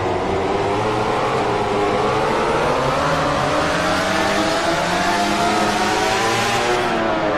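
Yamaha YZR-M1 MotoGP racing motorcycle's inline-four engine at race speed. The revs climb slowly and steadily for most of the time, then drop away near the end as it comes off the throttle.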